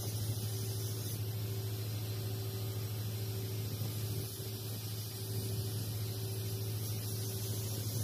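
TIG (argon) welding arc on a steel pipe joint: a steady hiss with a low hum underneath, dipping slightly about halfway through.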